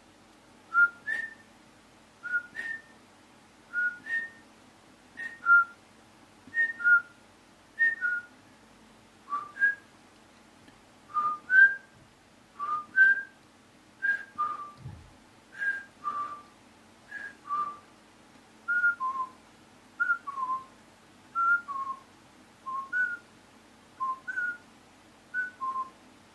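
A man whistling short two-note phrases, one about every second and a half. Early phrases step up in pitch and later ones mostly step down, with the last several pitched lower.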